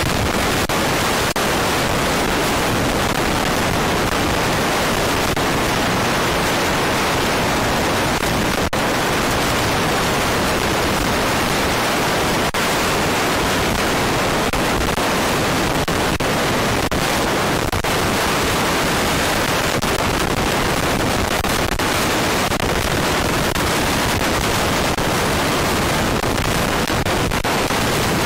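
Loud, steady noise with no pitch, rhythm or breaks, a hiss-like rush.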